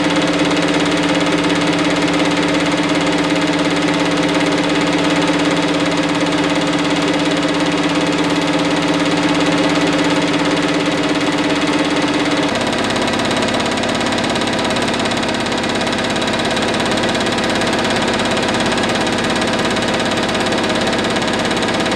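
Metal lathe running with a four-jaw chuck spinning, the turning tool hogging material off the workpiece. A steady machine hum whose pitch drops slightly about twelve seconds in.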